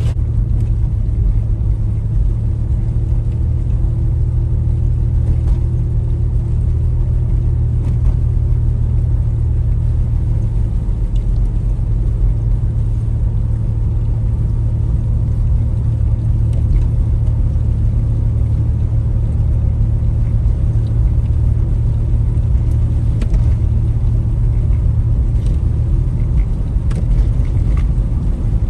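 Steady low rumble of a car running, with no change in pace.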